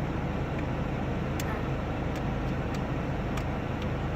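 Fidget Cube's light-switch side flicked a few times, about five faint irregular clicks over a steady low rumble.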